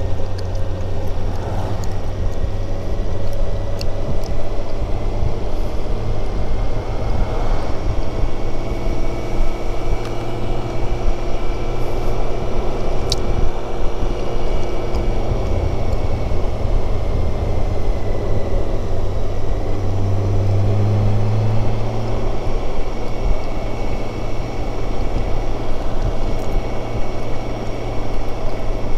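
A BMW K1600GTL touring motorcycle riding at speed: the inline-six engine runs with a steady low hum under road noise and heavy wind rush on the helmet-mounted camera. The low hum gets louder for a couple of seconds about two-thirds of the way through.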